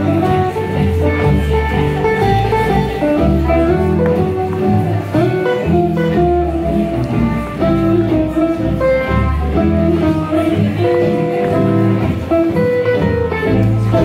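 Live gypsy jazz band playing: acoustic guitars strumming a steady rhythm over an upright double bass, with a lead melody on top.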